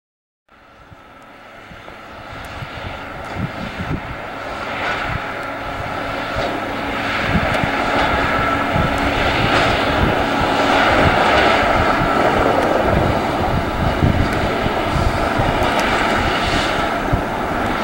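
Mount Washington Cog Railway locomotive working up the mountain grade, a steady engine drone that grows louder over the first several seconds, with soft pulses about every one and a half seconds.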